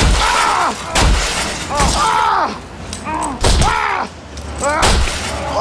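High-pitched yelling in a string of short cries, each rising and falling, with several heavy thumps and crashes as a metal kettle stand is struck against a person.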